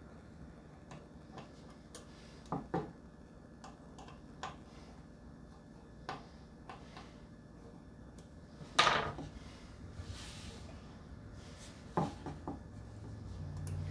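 Scattered small clicks and taps of a folding pocket knife and its metal belt clip being handled while the clip is fitted, with one louder clack about nine seconds in and a quick cluster of clicks about twelve seconds in. A low rumble comes up near the end.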